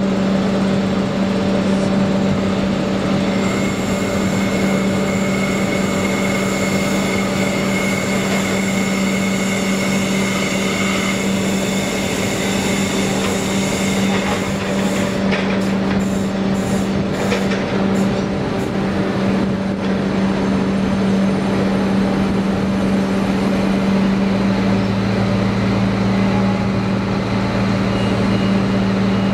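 Comeng/Clyde 3000 series diesel railcar standing at a platform, humming steadily as it idles, with high whines from about three seconds in until about halfway. Around the middle a second railcar rolls in alongside with a run of clicks and rattles, and a lower steady engine note joins it near the end.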